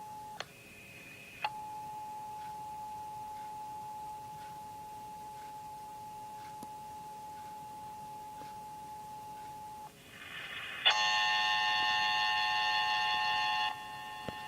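Electronic tones from a broadcast Emergency Alert System test. A single steady pure tone is briefly swapped for a higher tone near the start. Near the end comes a loud, clashing chord of many tones for about three seconds, which then drops to a quieter chord.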